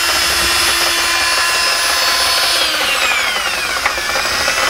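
Cordless drill spinning a paddle mixer through epoxy resin in a plastic bucket: a steady motor whine that falls in pitch about two and a half seconds in as the drill slows, then holds at the lower speed.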